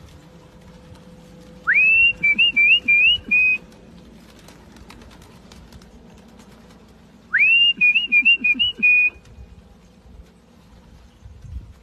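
Someone whistling the same short call twice, about five and a half seconds apart. Each call is a quick rising slide into a string of wavering notes.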